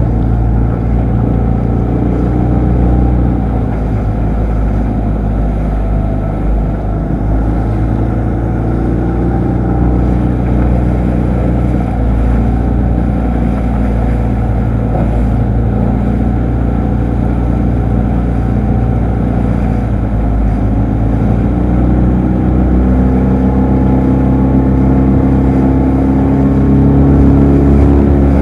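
A boat's outboard motor running steadily under way, the engine note rising and getting louder about three quarters of the way through.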